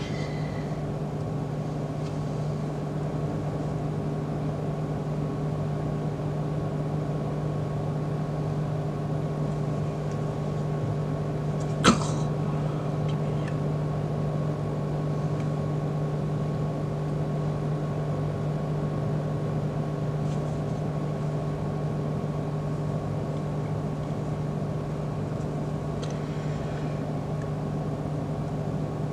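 Steady electrical hum of a fluorescent fitting's ballast running an end-of-life Philips TL-D 18 W tube, a ballast its owner says runs very hot. One sharp click comes about twelve seconds in.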